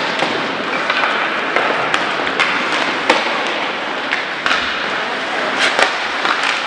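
Ice hockey play: a steady hiss of skates on the ice and general rink noise, broken by several sharp clacks of sticks, puck and boards.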